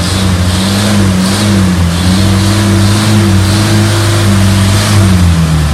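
Diesel engine revved up and held at high revs, dropping back near the end.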